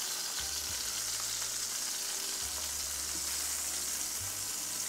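Beef strips sizzling as they fry in a hot stainless steel pan: a steady, even hiss.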